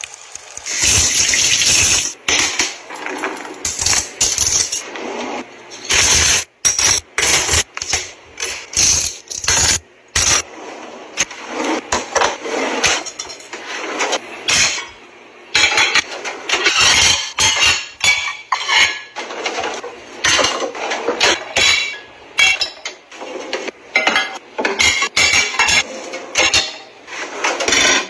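Ceramic plates and bowls clinking and clattering as they are stacked into a kitchen drawer, many sharp knocks at an uneven pace. A brief hiss of running water from the kitchen faucet comes in the first couple of seconds.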